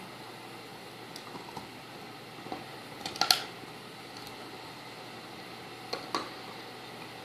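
A dog gnawing on a hard nylon chew bone: scattered sharp clicks of teeth on the nylon, loudest in a cluster about three seconds in and again near six seconds, over a steady low hiss.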